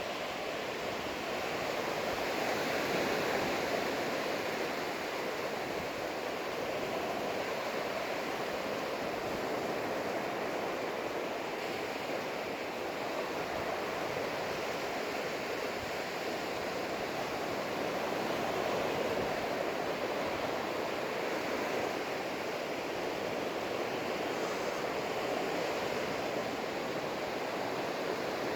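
Surf washing onto a sandy beach: a steady rush of breaking waves that swells gently in loudness every several seconds.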